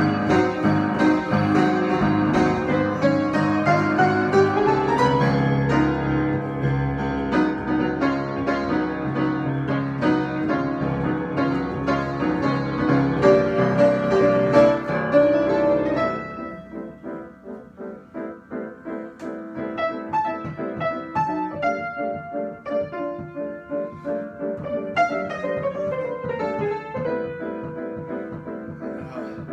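Improvised solo piano playing: full, loud chords and runs that drop suddenly, a little past halfway, to quieter, sparser notes.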